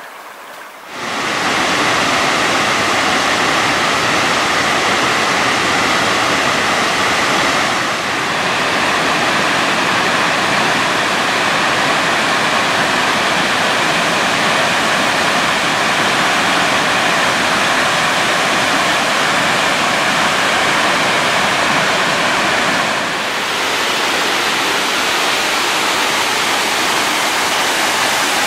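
Steady, loud rush of a large waterfall on the Bechler River, coming in abruptly about a second in, with small shifts in level near 8 and 23 seconds.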